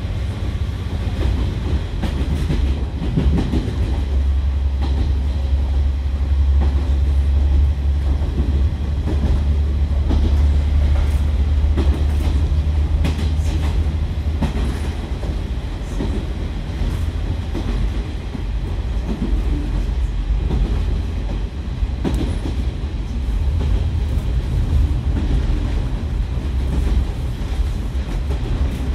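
KiHa 147 diesel railcar under way, heard from inside the car: a steady low diesel engine drone with wheels clicking over rail joints at irregular intervals.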